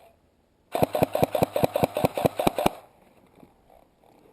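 An airsoft rifle firing a rapid burst of about two seconds, loud and close, an even run of sharp shots at about eight a second.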